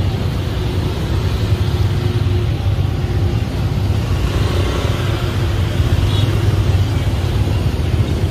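Dense motor-scooter traffic heard from a moving scooter: a steady low rumble of small engines and road noise.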